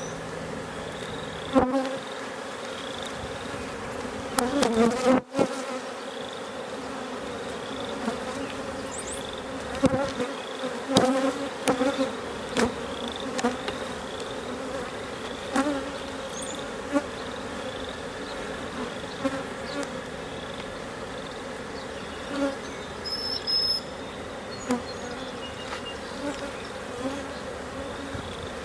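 A honey bee colony buzzing steadily around an opened hive. Scattered sharp knocks and clicks come through the buzz, heaviest in the first half and again around 10 to 13 seconds in.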